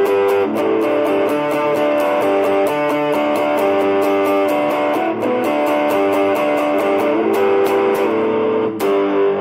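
Electric guitar played through a Valeton Dapper Amp Mini amp-simulator pedal with reverb on, into a Fender Champion 20 amp: a melodic line of held notes and chords, over a fast, steady ticking pulse.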